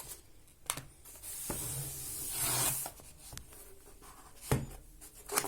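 Cardboard gift-box packaging being handled and opened: a scraping rub of cardboard for about a second, with a few sharp knocks and clicks as the box is turned over.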